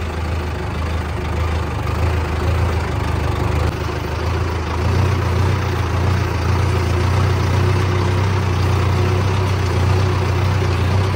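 Mahindra Arjun Novo 605 DI-i tractor's diesel engine running steadily as the tractor is driven, heard close up from the driver's seat. Its low drone rises a little in pitch about four to five seconds in.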